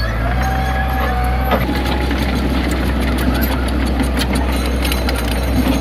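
Heavy earthmoving machine's diesel engine running steadily, with a steady whine over it for the first second and a half, then a string of knocks and clanks.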